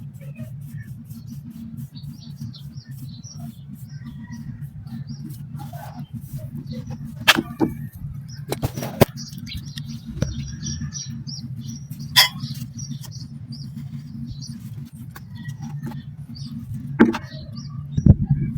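Dry black sand being crumbled and crushed by hand: a running patter of gritty crackles with a few louder snaps, over a steady low hum.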